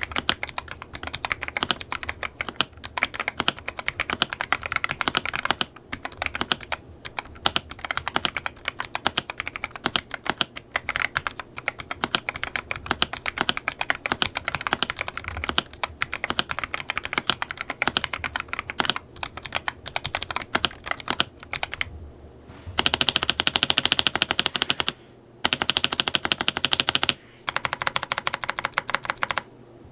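Typing on a Weikav WK75 mechanical keyboard: a rapid, continuous run of keystroke clacks. About three quarters of the way in, it turns into louder, denser bursts of very fast keypresses with brief pauses between them.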